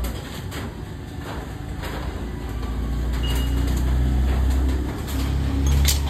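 Motorcycle engine running with a steady low rumble that slowly grows louder over the first few seconds and dips briefly near the end, with light clicks and knocks over it.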